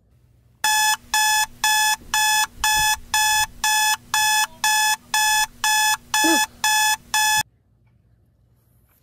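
Electronic alarm clock beeping: a run of short, identical, evenly spaced beeps, a little over two a second, that cuts off suddenly about three-quarters of the way through.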